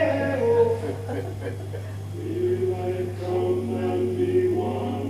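Voices singing, with broken-up phrases at first and then long held notes from about two seconds in, over a steady low electrical hum.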